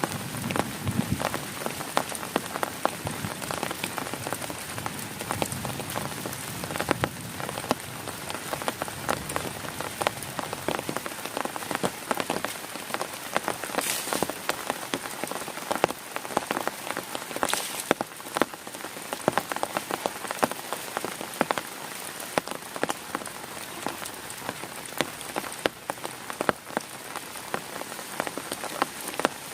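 Heavy rain falling on a tent: a dense, unbroken patter of drops hitting the fabric, with a couple of brief heavier spells of hiss about halfway through.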